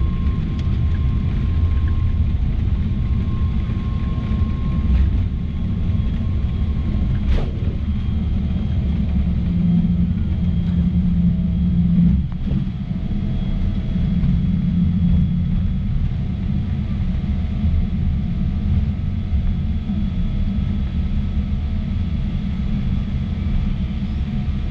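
Steady low rumble inside an airliner's cabin as the jet rolls along the runway just after touchdown, with a short falling whistle about seven seconds in.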